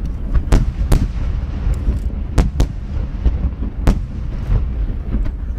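Large 30 cm (shaku-dama) aerial firework shells going off in rapid succession: sharp bangs every second or so over a continuous low rumble of booms.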